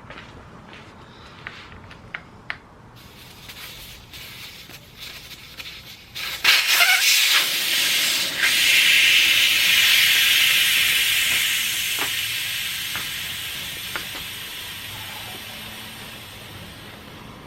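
Air hissing at the valve stem of a motorcycle tire's inner tube. It starts suddenly about six seconds in after a few light clicks, then slowly fades. This is one of several inflate-and-deflate cycles used to seat the tube and tire on the rim.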